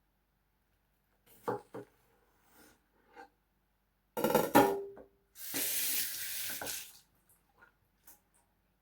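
A couple of light knocks, then a loud clatter of kitchenware with a brief ring, followed by a kitchen tap running for about a second and a half before it is turned off.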